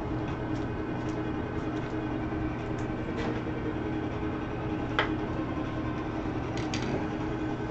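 Steady room hum, like a fan or air-conditioning unit running, with a few faint clicks, the sharpest about five seconds in.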